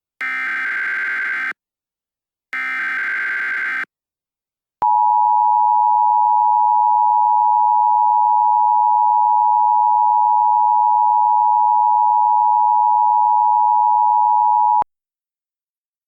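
Emergency Alert System signals: two short bursts of screeching digital SAME header data, about a second apart, then the EAS two-tone attention signal, a single steady loud tone held for about ten seconds and cut off abruptly.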